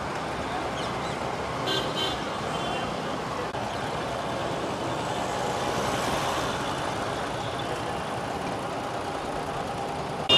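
Steady road traffic noise, with a vehicle horn tooting briefly about two seconds in.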